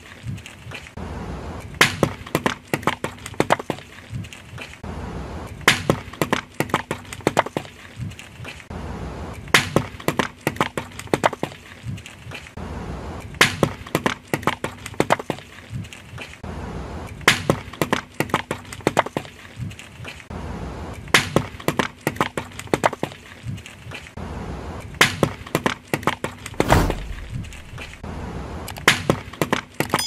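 Toothpaste tubes being crushed under a car tyre: a dense run of sharp cracks and crackling, with the same pattern of loud cracks recurring about every four seconds. There is a low thud near the end.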